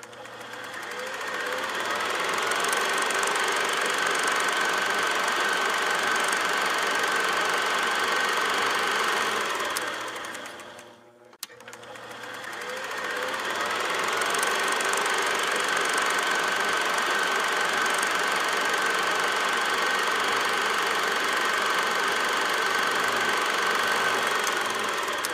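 A steady, rapid mechanical clatter, like a small machine running, with a thin steady whine over it. It fades in, runs, and fades out about halfway through, then does the same again.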